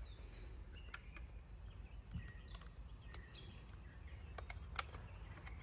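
Faint outdoor ambience with distant birds chirping in short calls, and a few light clicks and taps, three of them close together near the end.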